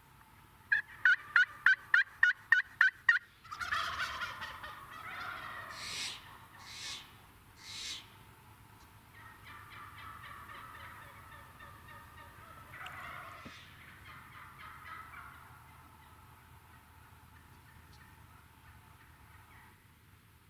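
A quick run of about nine sharp turkey yelps, then a Merriam's wild turkey tom gobbling in a long rolling call. Shorter gobbles and fainter rattling calls follow over the next several seconds.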